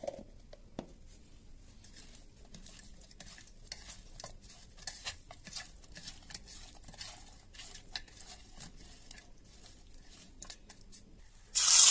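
Faint, irregular wet clicks and rustles of a bare hand kneading salt and turmeric into raw amodi fish on a plate. Near the end a loud, steady sizzle cuts in suddenly: the fish frying in hot oil in a kadai.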